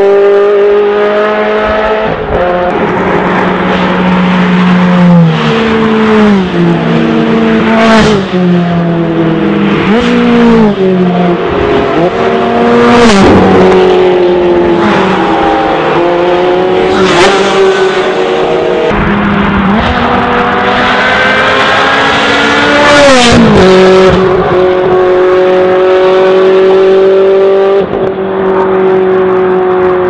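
Ferrari 360 Challenge Stradale V8 engines accelerating hard through the gears. The pitch climbs and drops abruptly again and again at the upshifts, with sharp cracks at several of the shifts.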